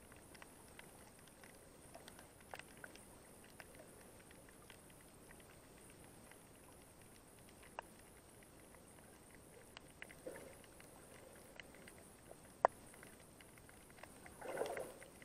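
Faint crackling of irregular clicks picked up underwater, with a sharper click about two-thirds through and a louder muffled burst near the end.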